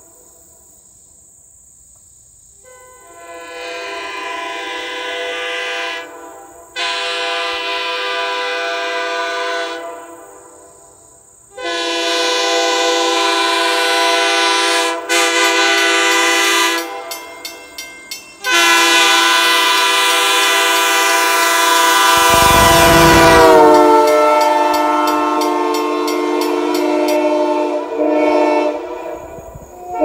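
Sand-cast Airchime Holden K3L three-chime train horn blown on 120 psi air, sounding its mellow chord. There are several blasts of a few seconds each, then a run of quick short toots, then one long blast of about eleven seconds whose chord sags slightly in pitch partway through.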